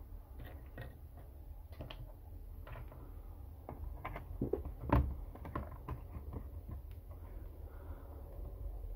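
Handling noises: scattered light clicks and knocks as a plastic water bottle is handled over the metal boiler of a model steam engine, with one louder knock about five seconds in, over a steady low hum.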